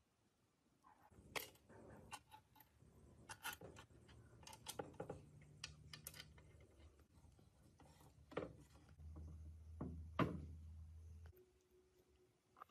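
Faint, scattered clicks and light knocks of small metal parts and tools being handled during a sewing machine restoration, about a dozen spread irregularly, with a faint low hum for about two seconds near the end.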